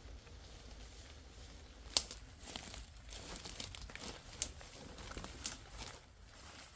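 Irregular crinkling and crackling, as of a sheet of material being handled, starting about two seconds in with a string of sharp crackles.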